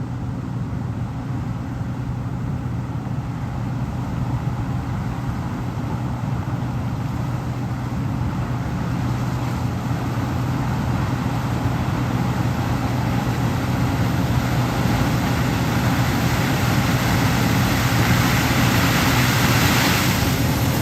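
Large diesel engine running steadily at constant speed, a low even hum under a hiss of machinery noise that slowly builds over the second half.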